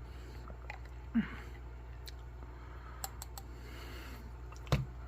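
Ration items and packets being handled and set down on a table: a few light clicks and knocks, three quick ticks in the middle and a sharper knock near the end, over a steady low hum.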